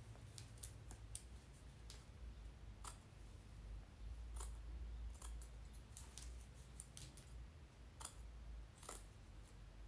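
Small scissors snipping away the lace beneath a wig's lace closure, cutting close to the stitching: about fifteen faint, irregularly spaced snips.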